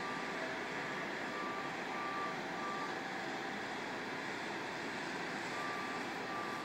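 Construction equipment's backup alarm beeping in short runs of evenly spaced beeps, over a steady hum of machinery.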